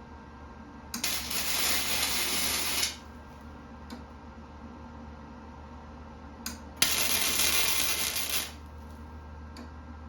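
Flux-core MIG welding: two bursts of arc noise, each about two seconds long, starting and stopping sharply as the trigger is pulled and released. A few faint clicks come between them.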